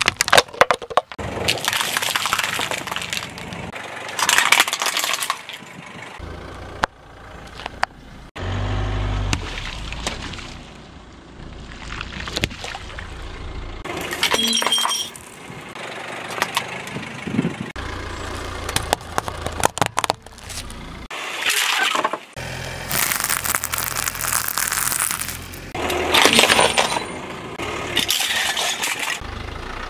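A string of separate crunches and sharp cracks as a car tyre rolls over and crushes objects, among them a drink container, cupcakes on a plastic stand and wrapped sweets. Some crunches carry clinking, brittle snaps, and a low car rumble runs between several of them.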